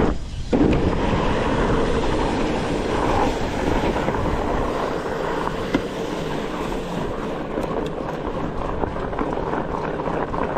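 Riding noise from a studded Trek Farley 7 fat bike: the 27.5 x 4.5 studded tyres rolling steadily over an icy snow trail, with wind on the microphone.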